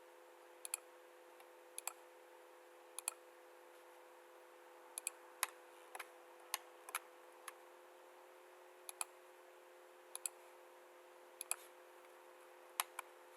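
Computer mouse clicking, single clicks and quick pairs at irregular intervals, over a faint steady hum.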